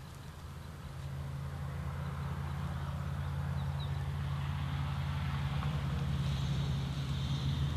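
A steady low engine-like hum that grows slowly louder, with a soft hiss above it.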